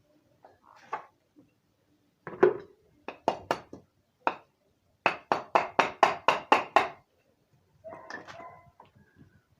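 Hammer knocks, struck through a wooden stick against a motorcycle engine part stuck on with silicone sealant, to loosen it. A few separate knocks come first, then a quick even run of about ten blows, roughly five a second. Near the end there is a short rougher sound with a faint ringing note.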